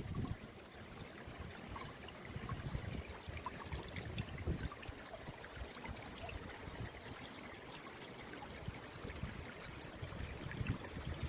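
Small stream trickling and burbling over stones, a steady running-water sound with little splashes.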